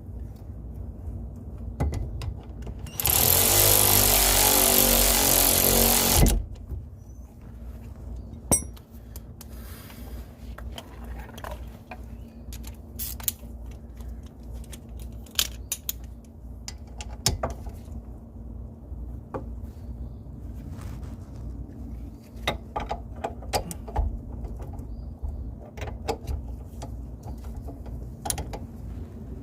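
Cordless ratchet running a brake caliper bolt in, one steady buzzing run of about three seconds, followed by scattered metallic clicks of hand tools on the bolts.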